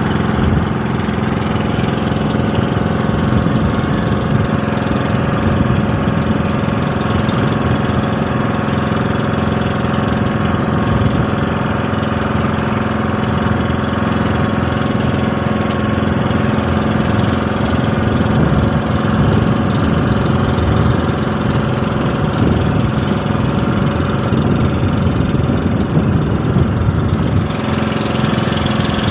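Small boat's engine running at a steady speed while the boat is underway, an even, unchanging hum.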